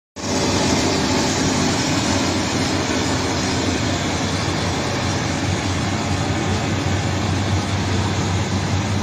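Heavy mining machine's diesel engine running steadily, with a constant low hum.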